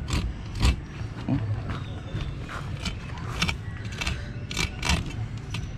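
Large kitchen knife cutting a small barracuda lengthwise on a plastic cutting board: a run of short, sharp clicks and scrapes as the blade works through the fish and knocks the board. A steady low hum runs underneath.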